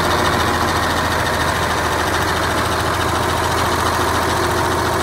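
John Deere 4555 tractor's six-cylinder turbocharged diesel idling steadily, heard up close beside the engine.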